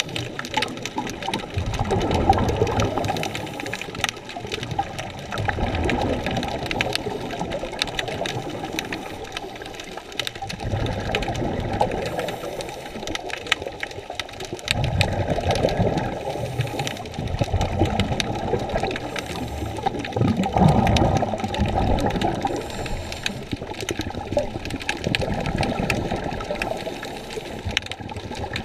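Scuba diver breathing through a regulator underwater: exhaled bubbles gurgle in a swell every three to four seconds, heard muffled.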